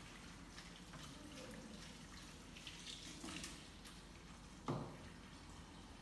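Faint water splashing and small clinks from dishes being washed by hand in a plastic basin in a sink, with one dull thump a little under five seconds in.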